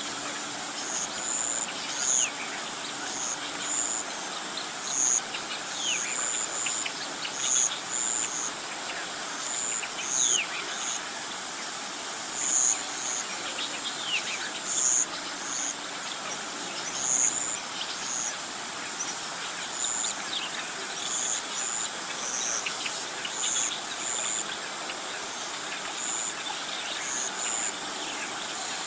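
Birds calling outdoors: short high chirps repeating about once a second, and a falling whistle about every four seconds, over a steady high hiss.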